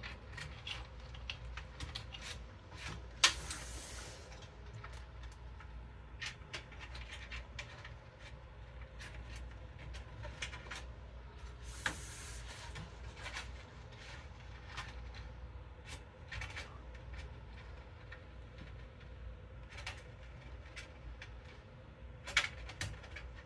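Cables and small parts being handled inside a computer case as the front-panel HD audio cable is rerouted: scattered clicks and knocks with short rubbing sounds, over a steady low hum. The sharpest clicks come about three seconds in and about twelve seconds in.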